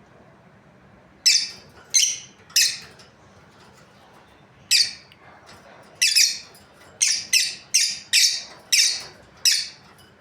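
Lovebirds giving short, shrill, high-pitched calls, about a dozen of them, starting about a second in and coming in quicker succession in the second half.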